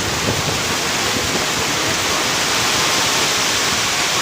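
Heavy downpour: the steady, even hiss of torrential rain pouring down.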